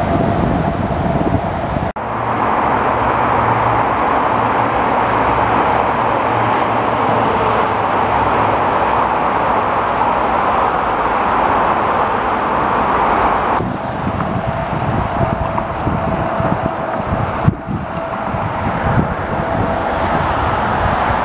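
Steady road traffic: a continuous rushing with a faint steady hum underneath.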